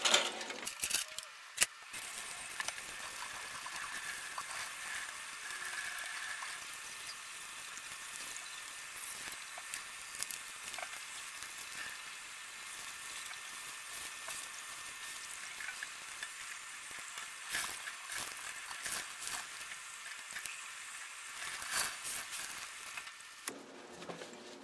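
Kitchen faucet running water onto a wet, dye-soaked cotton shirt in a stainless steel sink, a steady hiss that stops near the end. A few sharp clicks and rustles come in the first couple of seconds, as the shirt is handled out of its aluminium foil.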